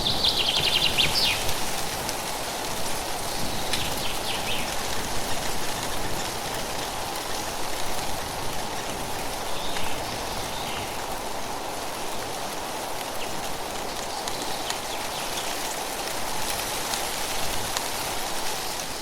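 Wind rustling through tree leaves in a steady hiss. Short high bird trills come near the start and again about four seconds in.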